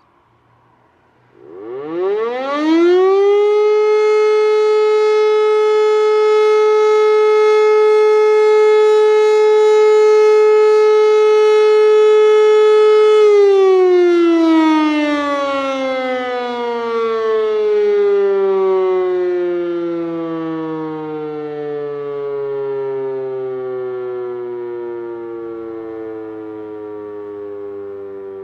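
E57 electric motor siren, its rotor turning the wrong way, starting about a second in. It spins up quickly to a steady wailing tone, holds for about eleven seconds, then runs down in a long falling tone as the rotor coasts to a stop.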